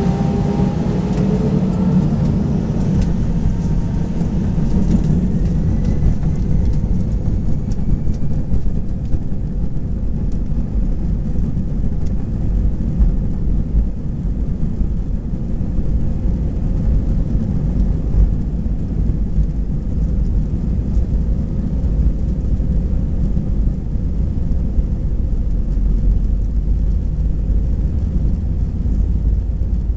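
Airbus A320-214's CFM56-5B turbofan engines at takeoff thrust: a steady, loud low roar. Over the first few seconds, whining tones rise a little in pitch and then fade.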